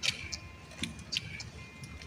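Faint background music with a few short, sharp clicks scattered over it.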